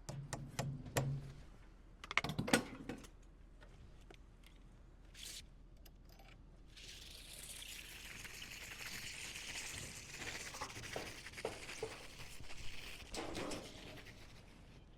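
A few sharp hammer knocks on a nail being set into framing lumber, followed in the second half by a steady hiss with a few light knocks.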